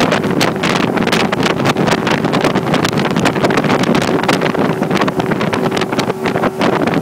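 Johnson 150 outboard motor running at speed with the boat planing: a steady engine drone under heavy wind buffeting on the microphone.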